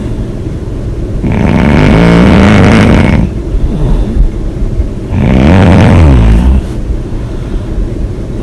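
A person snoring loudly: two long snores of about two seconds each, one a little over a second in and one about five seconds in, with softer breaths between them.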